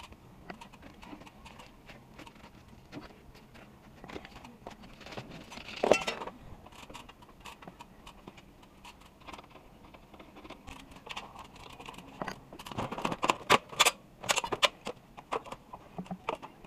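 Clicks, scrapes and rattles of hands handling air-conditioner pipework, tools and fittings. There is a louder clatter about six seconds in and a quick run of sharp clicks and knocks near the end.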